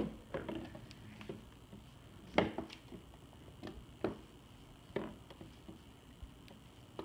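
Scattered light knocks and taps from a cardboard ball maze being tilted by hand, as the small ball rolls and bumps against the cardboard walls.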